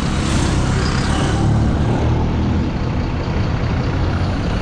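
Dense road traffic, with vehicle engines running steadily close by.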